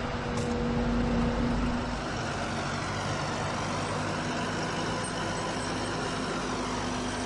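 Diesel engine of a John Deere compact track loader running steadily under work, a drone with a steady hum, and a deeper rumble that drops away about two seconds in.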